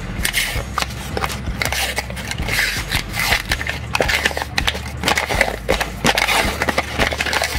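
The paper label of a Pillsbury Grands cinnamon roll can being peeled and torn off the spiral-wound cardboard tube: a run of crinkling, tearing and crackling.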